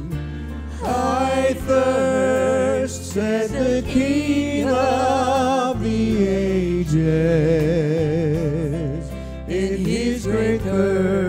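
A singer singing a slow gospel song with wide vibrato on long held notes, over accompaniment with sustained low bass notes.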